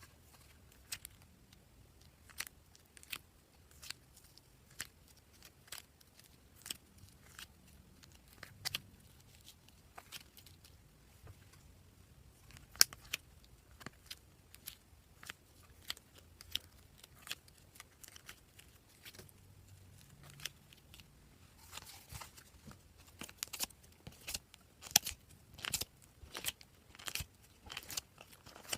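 Slime being mixed and pressed by hand, giving sticky clicks and little pops at an uneven pace, coming thicker and louder in the last several seconds.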